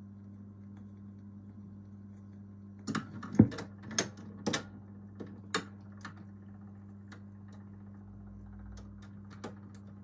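Pye Black Box record player's changer mechanism cycling after the end of a 45 rpm record: a steady low hum, then about three seconds in a run of mechanical clicks and clunks as the pickup arm lifts off and swings back to its rest.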